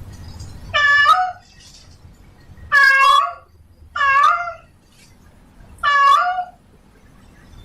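Female domestic cat in heat calling for a mate: four loud meows about one to two seconds apart, each about half a second long and dropping in pitch at the end.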